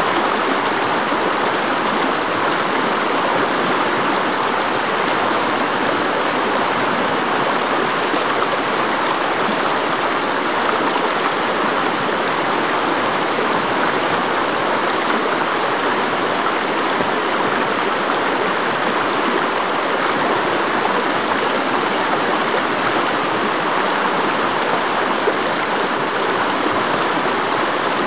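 Whitewater rapids rushing steadily, a constant, even sound of fast water pouring over rocks.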